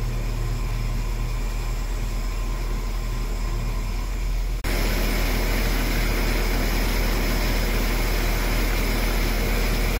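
Steady hum and whir of a stationary FEVE narrow-gauge train standing at the platform, its engine or on-board equipment running. An abrupt cut about halfway through brings a louder, hissier stretch of the same kind of running noise.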